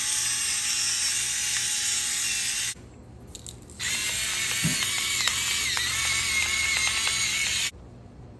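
Stainless-steel twist grinder grinding salt and pepper into a pot, a steady ratcheting grind in two spells. The first spell stops a little under three seconds in, and the second starts about a second later and runs until shortly before the end.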